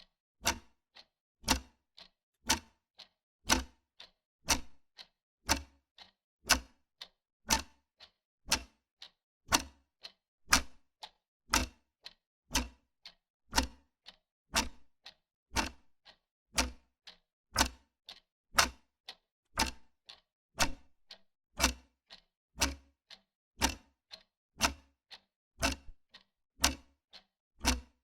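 Wall clock ticking steadily, about two ticks a second, alternating a louder tick with a softer tock.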